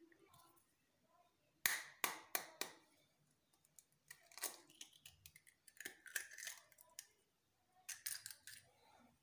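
An egg is tapped sharply about four times in quick succession to crack the shell. Crackling and rustling follow in short spells as the shell is pried open by hand and the egg drops into a glass bowl.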